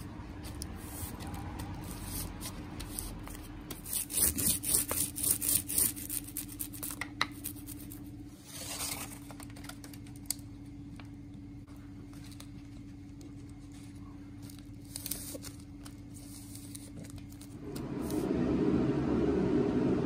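Scrapes, rubs and crinkles of wooden boards and a veneer sheet being handled and slid by hand, over a steady low hum. The scraping is busiest a few seconds in, and a louder even rushing noise starts near the end.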